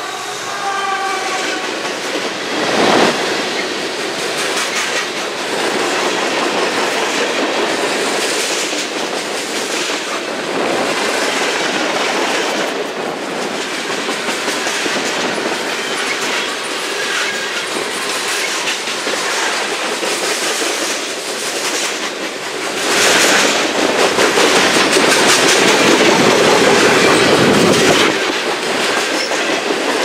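CSX freight train's tank cars and covered hoppers rolling past close by at speed, their wheels clattering over the rail joints in a steady loud rumble. The locomotive horn's last note trails off in the first second, and the rolling noise swells louder for a few seconds past the two-thirds mark.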